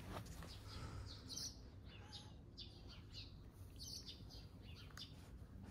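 Small birds chirping: a scattered run of short, high calls over a faint outdoor background.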